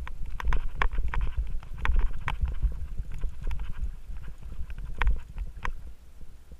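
Mountain bike rattling down a rocky dirt singletrack: irregular clanks and clicks as the bike jolts over stones and roots, over a steady low rumble.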